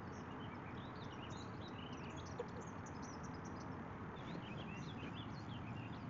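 Small birds chirping, many short high calls in quick clusters, over a steady low outdoor background hiss.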